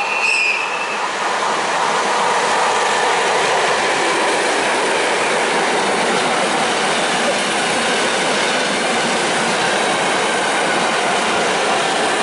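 Freight train of open wagons rolling through the station, a steady loud rush of wheels on rails with clickety-clack. There is a brief high squeal just after it starts.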